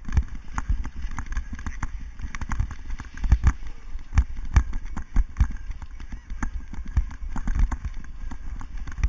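Cyclocross bike jolting over bumpy grass and dirt: irregular knocks and rattles, several a second, over a low rumble of wind on the microphone.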